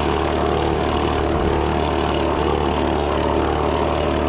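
Gas backpack leaf blower running steadily at constant throttle: an even engine drone with the rush of air from the blower tube.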